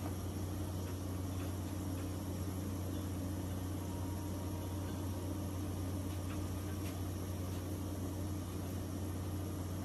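Steady low hum and hiss of a Blackstone 36-inch griddle's propane burners running on high, baking a coat of seasoning oil onto the smoking steel top.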